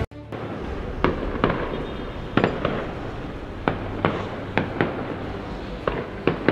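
Aerial fireworks display going off: about a dozen sharp, irregularly spaced bangs over a steady background rumble of further bursts.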